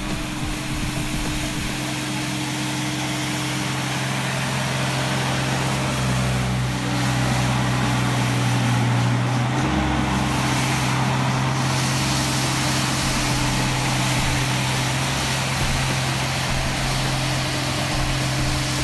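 Hako City Master compact tool carrier running steadily while its front rotary brush sweeps snow: a steady engine drone over a broad hiss of brush and thrown snow, a little louder from about six seconds in.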